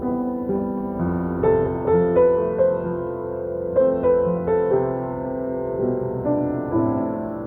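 Solo piano playing a slow, gentle pop-ballad melody over sustained chords, new notes struck every half second or so.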